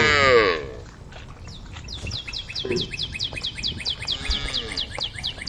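A cow's loud moo falls in pitch and ends within the first half-second. Then a bird gives a fast, even run of high chirps, about six a second, over a fainter moo from farther off about four seconds in.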